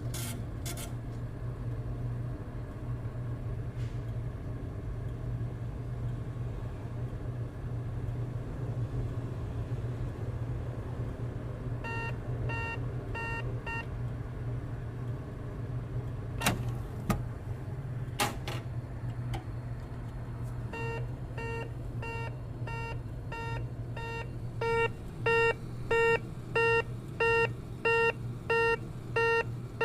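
Automatic teller machine running with a steady low hum. About halfway through come a few short beeps, followed by some sharp clicks and clunks. Then it beeps repeatedly, and the beeps become loud and evenly spaced, about one every two-thirds of a second, near the end.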